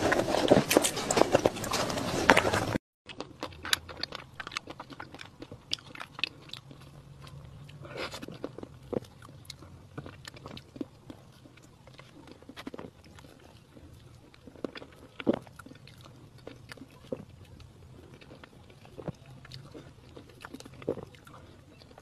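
Close-miked mouth sounds of eating soft cream cake: wet chewing and lip smacks. Loud and dense for the first few seconds, then after a sudden cut quieter, with scattered short smacks and clicks.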